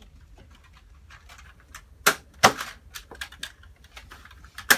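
A toy foam-dart blaster firing: three sharp snaps, two of them about half a second apart roughly two seconds in, and one more near the end.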